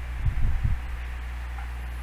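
A few soft, dull thumps in quick succession, handling noise as the speakerphone is moved about, over a steady low hum.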